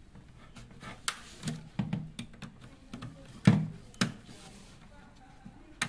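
Handling sounds of wiring a blower room heater: a scattering of small clicks and knocks as wires and push-on connectors are worked onto the terminals against the sheet-metal housing. The loudest knock comes about three and a half seconds in.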